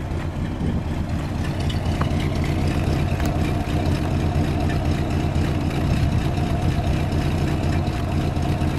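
1968 Cadillac DeVille's 472 cubic-inch V8 idling steadily, heard at the tailpipe; it grows a little louder over the first second or two, then holds even.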